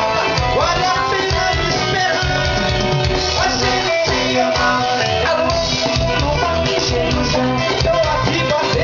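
Upbeat band music playing loudly.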